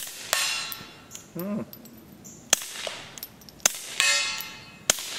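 Four suppressed shots from a .22 LR GSG 1911 pistol with a Thompson Machine ISIS-22 suppressor, each a short sharp report. The last three come close together. A fraction of a second after a shot, a steel target rings and slowly dies away.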